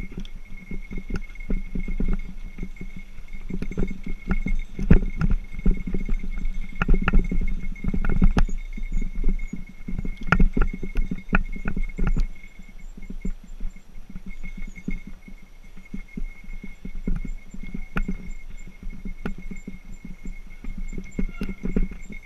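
Mountain bike jolting over a rough dirt singletrack: a run of rattles and knocks, heaviest in the first half and lighter after about twelve seconds, over a constant low rumble.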